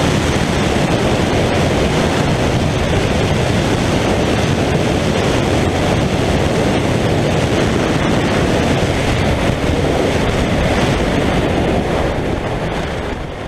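Loud, steady wind rush on the microphone of a KTM 790 Duke motorcycle ridden flat out at about 225 km/h on a top-speed run. It fades away near the end.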